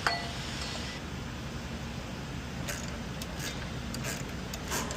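Light, irregular metallic clicks and taps of hand tools working at the oil filter, over a steady workshop hum; the clicks cluster in the second half.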